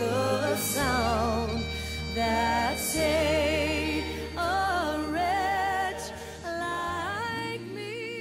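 A slow Christian worship song. A singer holds long notes with vibrato over sustained bass and keyboard notes, growing softer near the end.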